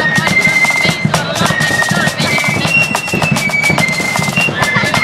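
Marching flute band playing: many flutes sounding a melody of long held high notes together, over rapid snare drum strokes and a bass drum beat.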